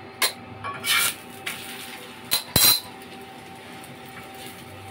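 Metal kitchen utensils clinking and clattering about five times over a steady faint hum, the loudest clatter a little under three seconds in.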